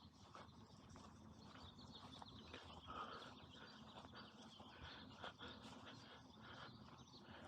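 Near silence: faint outdoor background with a few faint, scattered bird chirps and small ticks.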